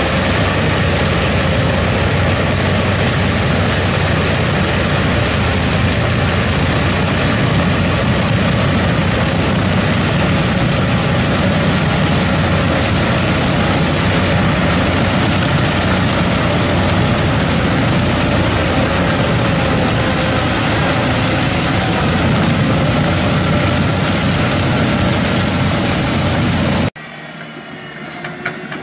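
Large tractor's diesel engine running steadily under load while its rotary ditch-cleaning wheel spins, with the rush of mud and water thrown out of the ditch mixed into a dense, unbroken noise. About two seconds before the end it cuts off suddenly to a much quieter engine sound with a few light clicks.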